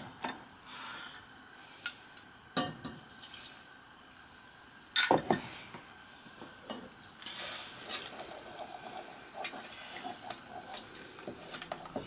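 Wooden spoon stirring a roux-and-stock sauce in a stainless steel saucepan. A few sharp knocks of the spoon against the pan, the loudest about five seconds in, give way to steady scraping from about seven seconds in.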